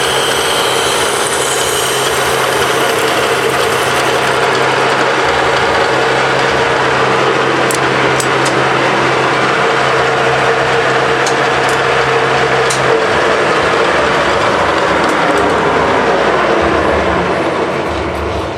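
Metal lathe running, a loud steady machine noise with a humming tone and a few sharp ticks in the middle; the sound fades and its pitch slides down near the end as the machine winds down.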